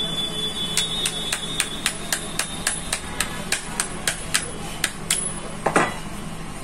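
A spanner tapping the metal housing of a Scorpio's AC blower motor to free its end plate: a quick run of sharp metallic taps, about four a second, then one heavier knock near the end.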